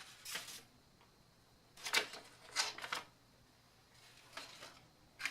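A handful of short rustling and clicking handling sounds, with a cluster of three about two to three seconds in and a softer one near the end.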